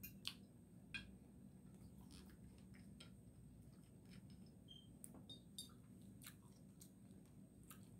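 Near silence: faint chewing of turkey meat, with a dozen or so small scattered clicks over a low steady room hum.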